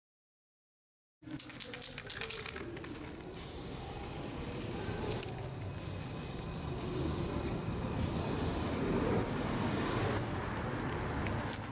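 Aerosol spray-paint can: a couple of seconds of rattling, then about five hissing sprays, each a second or so long with short gaps between them.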